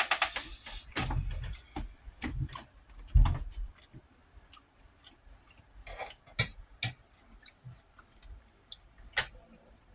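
A person eating bacon, eggs and rice: irregular mouth clicks and smacks while chewing, with a few low thumps in the first few seconds.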